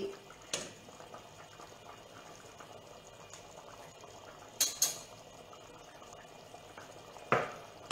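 A pot of broccoli soup simmering on a gas stove, a steady bubbling. A few short clinks of utensils are heard: one about half a second in, two close together about four and a half seconds in, and one near the end.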